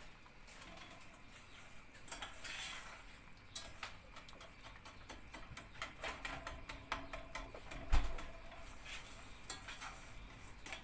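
Metal spoon stirring and scraping in a stainless steel pot of melting sugar, giving scattered light clinks and ticks, with one louder knock against the pot about eight seconds in.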